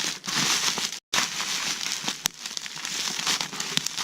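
Packaging crinkling and crackling as an item is handled and unwrapped, a steady run of small crackles and clicks broken by a split-second gap about a second in.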